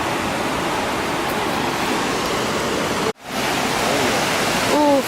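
Waterfall's steady rush of falling water, cutting out abruptly for a moment about three seconds in.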